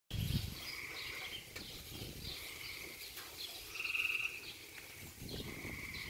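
Small tree frog calling its mating call: a few short, high-pitched croaks, each about half a second long, the loudest about four seconds in.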